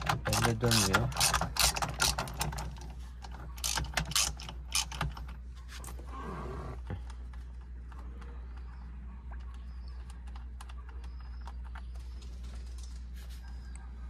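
Socket ratchet clicking in quick runs as it spins the steering wheel's 22 mm centre nut loose, then a few scattered clicks as the nut and socket are handled.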